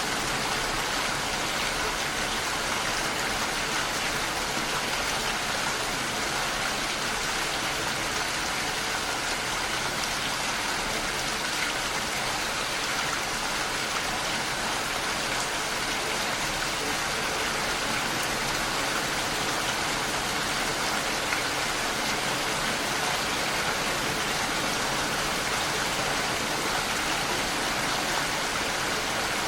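Steady rain falling, an even hiss of drops without breaks or thunder.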